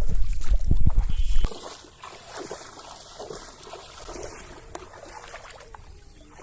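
Water trickling and splashing. A heavy low rumble cuts off suddenly about a second and a half in, leaving quieter small splashes and a single click near the end.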